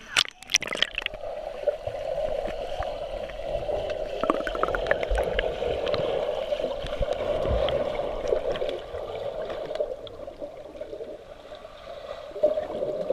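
Swimming-pool water heard through an underwater camera: a muffled, steady rush with bubbling and splashing from a swimmer's strokes, after a few sharp splashes in the first second as the camera dips below the surface.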